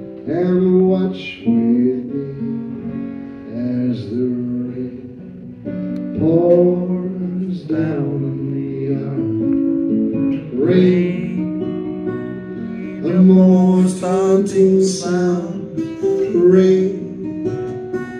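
Acoustic guitar played live with a man singing into a microphone, the voice coming in stretches over the guitar.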